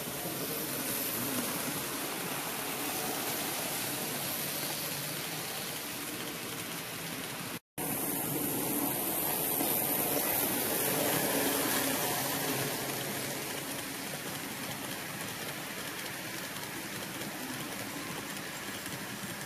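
HO-gauge model train cars rolling along the layout track: a steady running rumble of wheels on rail. It cuts out for an instant about eight seconds in.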